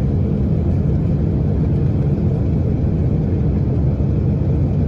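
Steady low rumble of a jet airliner's engines.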